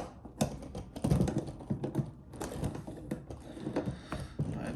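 Irregular small clicks and taps of skateboard hardware being handled as a wheel is fitted onto a truck axle: wheel, bearings, washers and axle nut knocking together.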